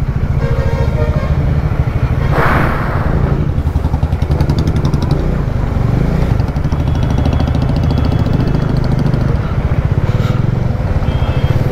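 Motorcycle engine running steadily as the bike is ridden slowly through a waterlogged, slushy road, with a brief rushing whoosh about two and a half seconds in.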